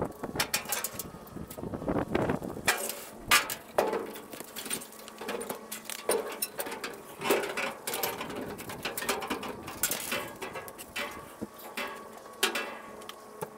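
Irregular knocks and clicks, some sharp, with no steady rhythm, as a car is worked off a steel-deck tilt trailer into a garage with a ratchet strap.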